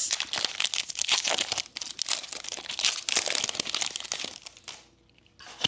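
Foil wrapper of a Pokémon TCG booster pack crinkling and tearing as it is ripped open by hand, stopping about four and a half seconds in. A single short click near the end.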